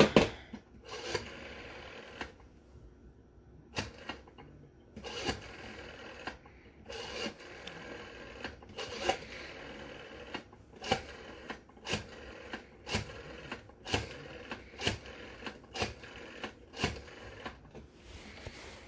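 Rotary dial of a Western Electric Model 500 telephone being dialed digit after digit: each turn of the finger wheel is followed by its whirring spring return and a click, about a dozen times, speeding up to roughly one digit a second in the second half.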